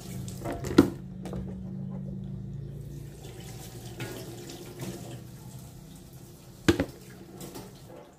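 Kitchen tap running into a stainless-steel sink while hands rinse under the stream, with two sharp knocks, one about a second in and a louder one near the end.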